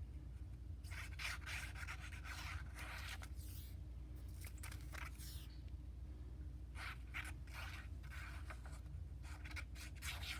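Paper being handled: soft rustling and scraping in several irregular stretches, with a pause in the middle, over a low steady hum.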